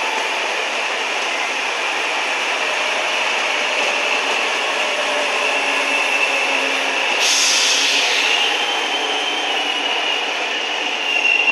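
A train running past on the rails, a steady rushing wheel-and-rail noise with a thin high squeal that grows stronger toward the end. A brief hiss comes in about seven seconds in.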